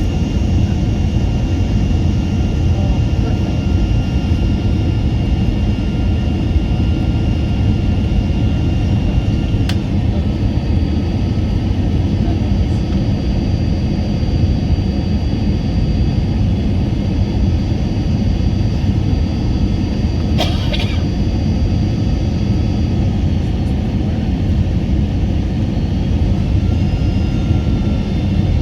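Steady cabin roar of a jet airliner on its approach: engine and airflow noise, with faint steady whining tones above it. A brief click comes about ten seconds in and a short rustle around twenty seconds in.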